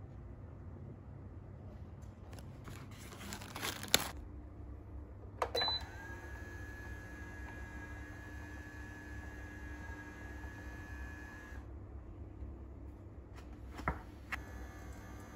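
Automatic pour-over coffee maker: a click about four seconds in, then a short electronic beep, then a steady high-pitched whine from the machine for about six seconds that cuts off suddenly. Another click comes near the end, over a low steady hum.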